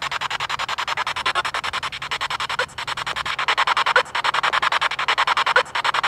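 Spirit box sweeping radio stations, a fast, even chopping of static many times a second. It breaks off briefly three times, and in those breaks a fragment of a voice is taken as a spirit answering "What?".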